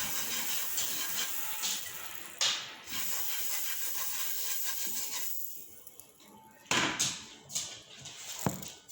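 Hotcake batter sizzling in a hot pan, a steady hiss that stops about five seconds in, followed by a few sharp knocks.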